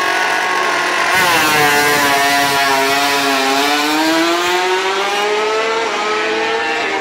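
MotoGP racing motorcycle engines passing on the track. About a second in, a louder bike's note comes in over a steadier one; its pitch slides down for a couple of seconds, then climbs again.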